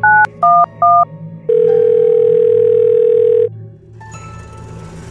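Phone keypad dialing 9-1-1 in touch tones: three short two-tone beeps, the last two alike. Then the ringback tone rings once for about two seconds while the call goes through.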